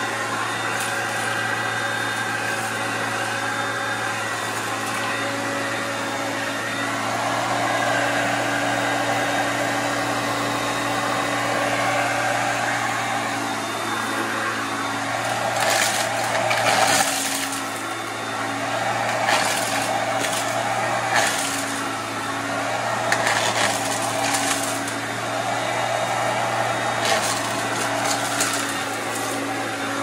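Hoover Concept upright vacuum cleaner running steadily with a constant motor hum. From about halfway through, repeated bursts of sharp clattering and crunching come through as it sucks up pecans, shells and all.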